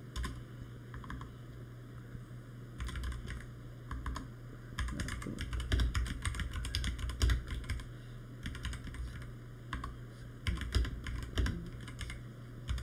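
Typing on a computer keyboard: runs of quick keystrokes broken by short pauses, busiest around the middle.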